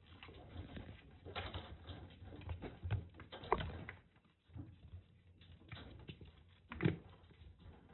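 Kittens scampering and wrestling on a floor mat: quick light pattering of paws and scuffling, with two louder knocks, one about three and a half seconds in and the sharpest near seven seconds.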